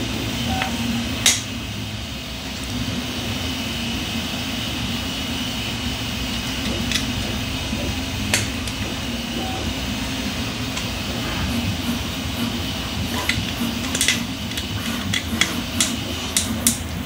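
Sharp hard-plastic clicks and taps as 3D-printed plastic model parts are handled and pushed together: one about a second in, a couple in the middle, and a quick run of clicks near the end. A steady machine hum runs underneath.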